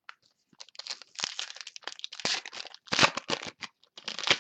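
Crinkling and tearing of a foil trading-card pack wrapper as it is handled and opened, in a run of irregular crackly rustles.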